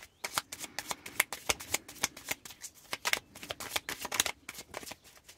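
A deck of oracle cards being shuffled by hand, passed in small packets from one hand to the other: a quick, irregular run of card snaps and flicks.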